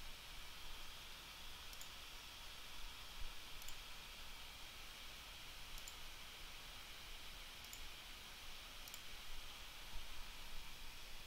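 Five faint computer mouse clicks spread over about nine seconds, over a steady low background hiss.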